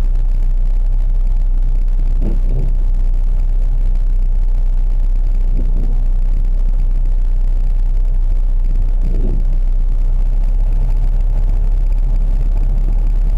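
Steady low rumble of a car driving, heard from inside the cabin. Three faint short sounds come through it at even intervals of about three and a half seconds.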